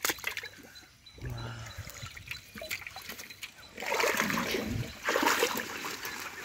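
Shallow muddy water splashing and sloshing as a person wades through it and stirs it with legs and hands; quieter at first, then louder from about four seconds in.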